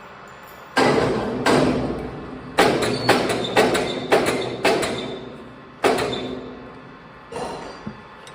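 Heavy metal-on-metal knocks, eight strong blows at uneven spacing, each ringing and dying away, then a weaker one near the end.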